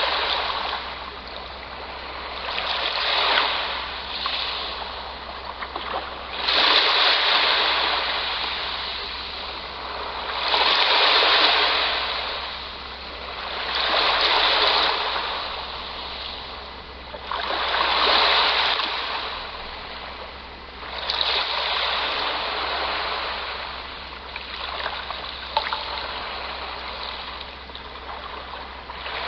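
Sea waves washing onto the shore, the surf swelling and falling back about every three to four seconds.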